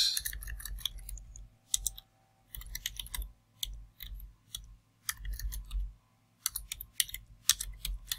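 Typing on a computer keyboard: bursts of quick keystrokes separated by short pauses.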